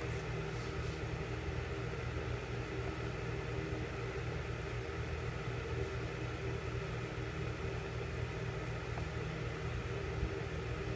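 Electric fan running, a steady low hum with a whooshing hiss, so loud.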